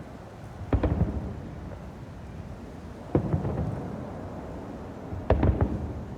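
Aerial fireworks shells bursting: three deep booms about two and a half seconds apart, each trailing off in a low rumble, the last followed by a couple of quick smaller pops.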